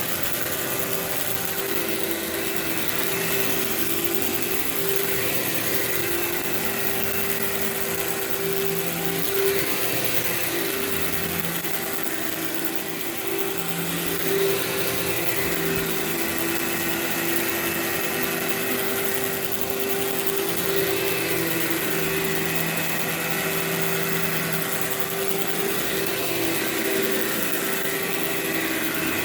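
Workhorse vacuum cleaner running steadily, its motor giving a constant hum and whine over a rushing hiss as it is worked over carpet to pull out carpet freshener powder.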